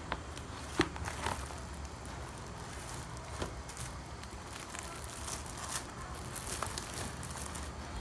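Sheets of paper rustling and crinkling as a stack of papers is handled, with a sharp tap a little under a second in.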